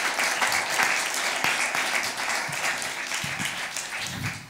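Audience applauding, the clapping thinning and dying away near the end.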